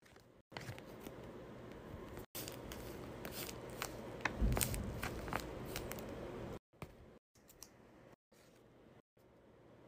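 Crinkling and rustling of tape-covered paper as a homemade paper blind bag is opened and a taped paper squishy is handled, with sharp crackly clicks and a heavier handling bump about halfway. It turns quieter near the end, with a few soft clicks as scissors are put to a new paper bag.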